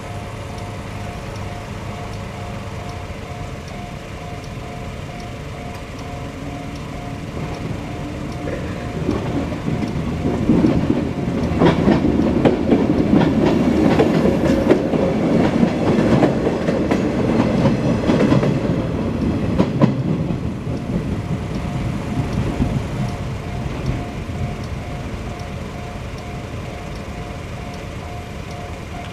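Railway level crossing warning bell ringing with a steady repeating tone while a train passes. The train's rumble and wheel clatter build up, are loudest in the middle, then fade away, with the bell still ringing throughout.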